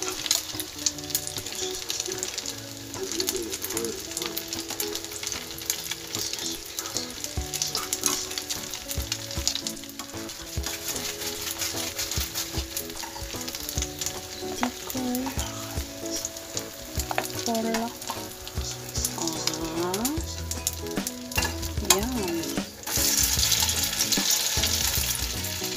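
Egg-dipped slices of tikoy (sticky rice cake) sizzling and crackling as they fry in hot oil in a small pan. The sizzle grows louder near the end.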